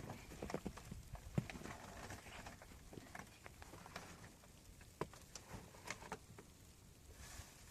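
Irregular light knocks and taps, several to a second, with a sharper knock about one and a half seconds in.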